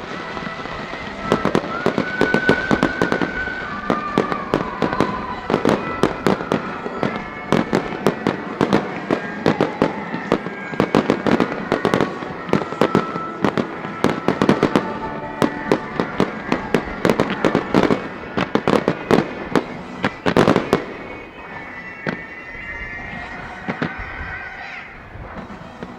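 Fireworks display going off: a dense, rapid barrage of bangs and crackles that thins out to scattered pops about 21 seconds in.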